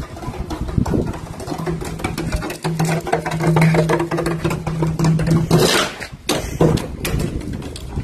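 Plastic water bottle crackling and scraping on asphalt as a small dog carries it along, in quick irregular clicks. A steady low hum runs under it from about a second and a half in until just past five seconds, and a short noisy rush comes soon after.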